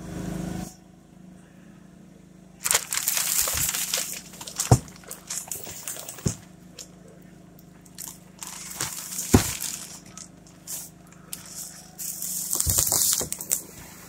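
Plastic wrapping crinkling and rustling in bursts as it is pulled and handled, with several sharp knocks; a steady low hum runs underneath.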